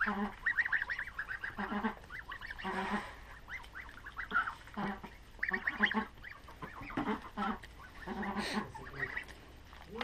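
Domestic geese calling with short honks and soft chattering gabble, coming in little clusters every second or so.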